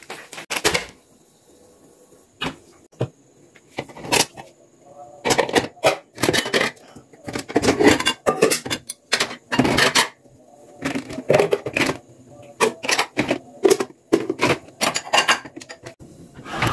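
Plastic bowls and containers knocking and clattering as they are handled in a plastic dish basket: a long run of irregular clacks with short pauses.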